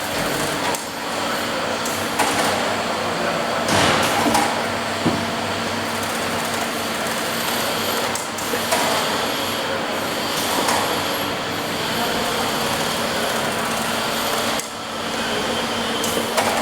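Automatic carton taping machine running: a steady motor hum under dense mechanical noise, with a few sharp knocks as cartons go through.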